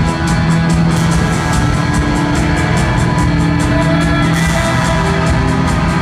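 Rock band playing live: electric guitars holding sustained notes over drums that keep a steady, even beat.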